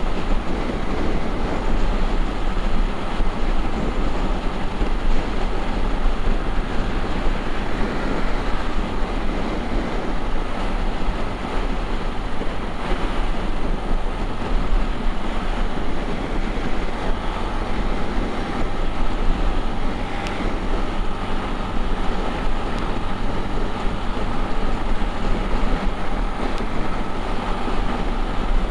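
Honda XRE 300's single-cylinder engine running steadily under a constant rush of noise. Its valve clearance is set a little loose, which the rider says gives a louder valve-tapping noise.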